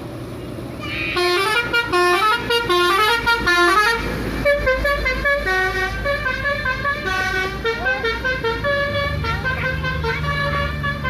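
A bus's basuri telolet air horn plays a quick, stepping melody of several tones, starting about a second in and running on with a short burst of noise about four seconds in. A low engine drone comes up near the end.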